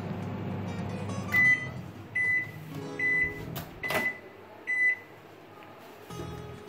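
Microwave oven finishing its cooking cycle: its running hum stops about a second in, then it beeps five times, roughly one short high beep a second. The door latch clicks open near the middle.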